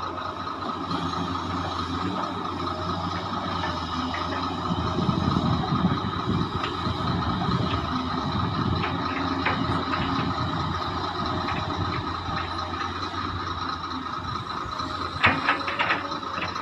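Hydraulic excavator running at a mine loading site: a steady diesel rumble with a constant high whine over it. The rumble grows louder about five seconds in, and a quick series of sharp metallic clanks comes near the end.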